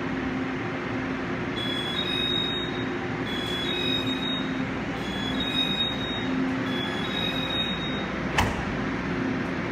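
Door-closing warning chime of a Taiwan Railway E1000-series push-pull Tze-Chiang express: a high two-note beep, low then high, repeated four times, over the steady hum of the standing train. Near the end the sliding doors shut with a single sharp knock.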